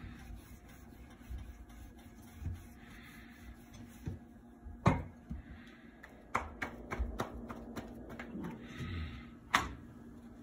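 Wooden rolling pin rolling out paratha dough on a granite counter: soft rubbing strokes and a string of sharp knocks and clacks as the pin and dough are handled on the stone. The loudest knocks come about five seconds in and near the end, over a low steady hum.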